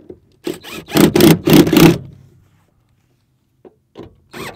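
Cordless drill running under load while fastening the seat-bracket hardware, in a few quick trigger surges for about a second and a half, then stopping; it starts up again near the end.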